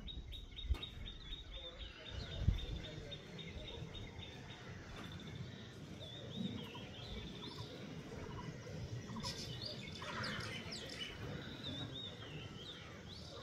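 Songbirds calling: a fast run of repeated high chirps for the first few seconds, then scattered, varied high notes, over a low steady background of outdoor noise. Two short low thumps come in the first few seconds.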